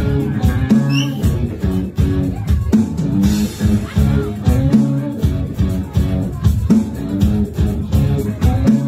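Live rock band playing: electric bass, electric guitar and drum kit, with drum hits keeping a steady beat.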